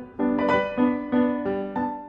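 Piano music: a run of chords struck in a steady pulse, about three a second.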